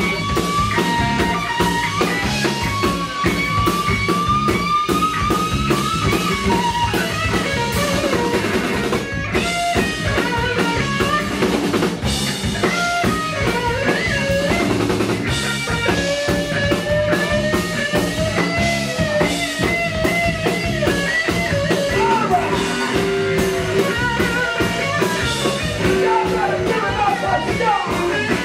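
Live blues band: electric guitar playing lead lines with bending, sliding notes over a drum kit.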